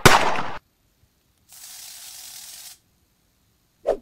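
The last of a rapid series of gunshot sound effects, a sharp bang at the very start that cuts off after about half a second. About a second and a half in comes a steady hiss lasting just over a second.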